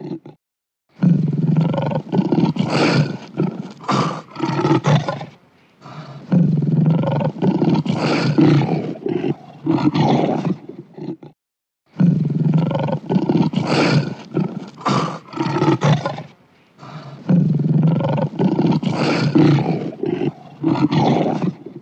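Lion roaring: four bouts of roars, each a run of repeated pulses a few seconds long, separated by short pauses.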